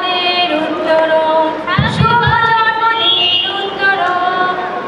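Women's voices singing a song together, holding long wavering notes.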